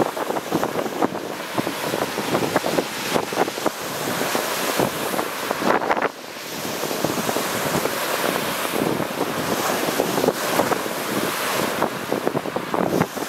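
Lake Superior surf breaking and washing over a rocky, pebbly shore, a dense crackling rush of water, with wind buffeting the microphone. The rush drops off abruptly about six seconds in and then builds again.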